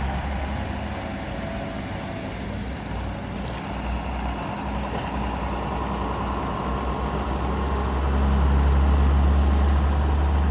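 John Deere 6610 tractor's diesel engine pulling a loaded grain trailer away across the yard, working steadily under load, getting louder about eight seconds in.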